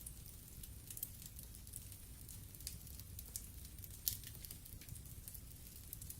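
Fireplace fire crackling: irregular sharp pops and snaps over a low steady rumble, with one louder crack about four seconds in.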